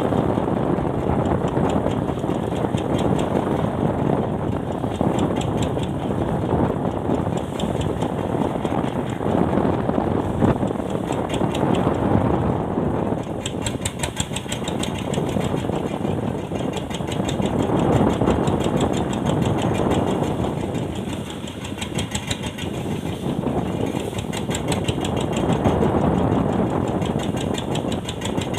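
Fishing boat's engine running steadily, with a rapid, even pulsing.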